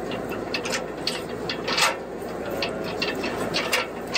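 Aluminium extension ladder being shifted by hand: irregular metallic clicks and clacks from its sections and rung locks, with louder clacks about two seconds in and again near the end.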